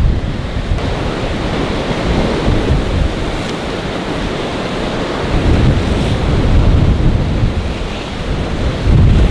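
Strong wind buffeting the microphone over the rush of choppy, breaking waves; the gusts grow louder past the middle and again near the end.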